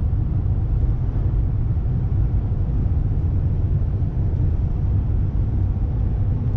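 Steady low rumble of road and engine noise heard inside a moving vehicle's cabin at road speed.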